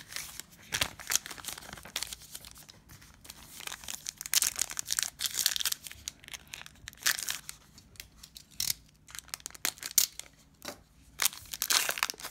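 Panini Revolution basketball card pack wrappers being torn open and crinkled by hand, in a run of irregular rips and rustles.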